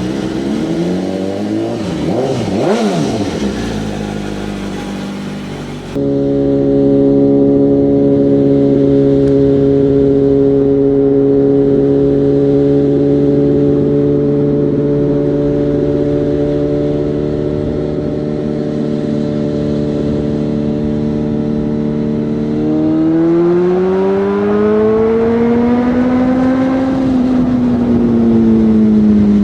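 BMW M1000R inline-four motorcycle engine through a genuine SC Project S1 slip-on exhaust, heard while riding. The note changes pitch up and down for the first few seconds. After a cut it holds steady at cruising speed, then rises as the bike accelerates and drops away near the end.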